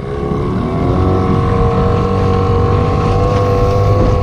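Motorboat engine speeding up about a second in, then running steadily at higher revs, with wind buffeting the microphone.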